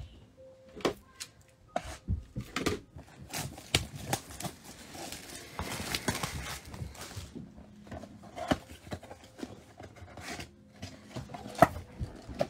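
Plastic shrink-wrap crinkling and tearing as a sealed trading-card box is unwrapped, then the cardboard box opened and its packs handled. It is a run of irregular crackles and taps, with a denser rustle about five to seven seconds in.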